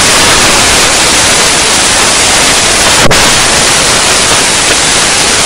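Loud steady rushing noise, even from low to high pitches, with one sharp click about three seconds in.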